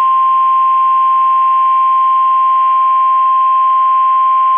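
NOAA Weather Radio 1050 Hz warning alarm tone: a single loud, steady tone over faint radio hiss. It is the attention signal that announces a warning message is about to be broadcast.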